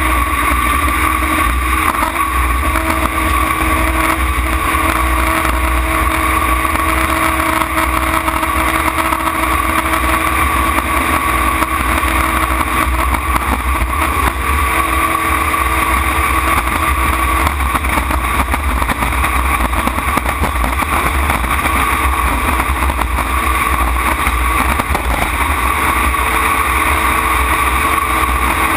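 Racing tunnel-hull jet boat's engine running hard at a steady high pitch, heard from the open cockpit together with a constant rush of wind and water.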